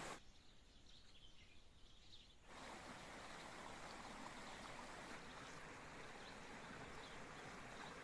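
Faint steady rush of spring water. It drops away for the first couple of seconds, when a few faint high bird chirps are heard, then comes back.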